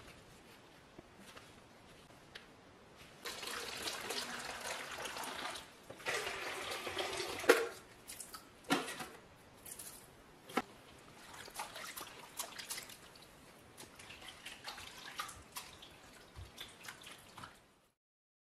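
Water poured into a plastic tub in two pours of a couple of seconds each, the second ending in a sharp knock, followed by small splashes, drips and clicks as kitchen towels are handled in the soaking water.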